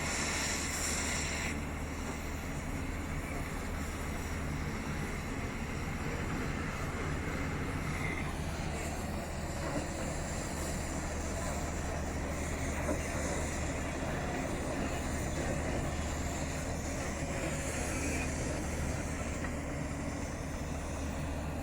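A heavy engine running steadily with an even low rumble. A brief hiss sounds in the first second or so.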